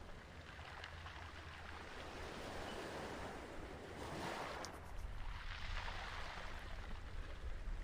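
Ocean surf: waves washing in and drawing back, swelling twice about halfway through.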